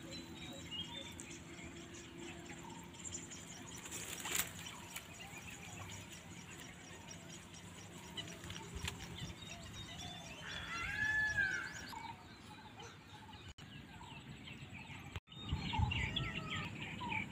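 Wild birds calling and chirping around open water, with a louder call in the middle and a single short knock about four seconds in.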